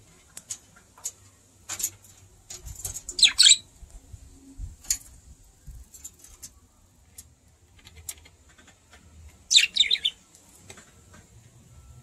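Budgerigars chirping: scattered short high chirps, with two louder bursts of quick warbling chatter, about three seconds in and again about nine and a half seconds in.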